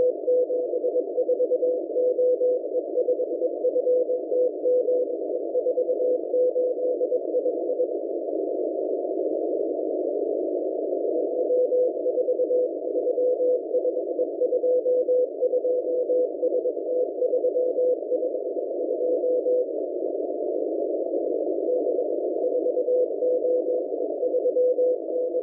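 Morse code numbers from the M01 numbers station received on shortwave: a single steady tone keyed on and off in dots and dashes, heard in three runs separated by pauses of two to three seconds. Behind it is a constant hiss of radio static, narrowed around the tone by the receiver's CW filter.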